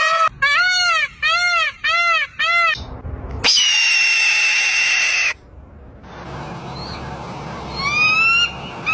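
A run of animal calls: about five quick, arched, pitched calls in a row, then a harsh screech lasting about two seconds, and a short rising call near the end.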